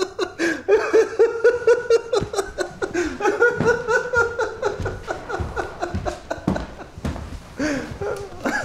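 A man laughing in a long run of quick, pitched 'ha' pulses that goes on from the first seconds and eases off about six seconds in, with a few more chuckles near the end.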